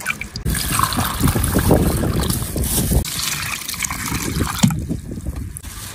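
Water poured from a basin over dried vegetables in a metal colander, splashing and trickling through. The pour begins about half a second in and stops near the end.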